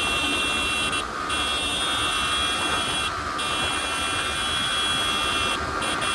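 Yamaha R15 V3's 155 cc single-cylinder engine running at high revs in fifth gear at around 110 km/h, a steady high whine, with wind rushing over the microphone.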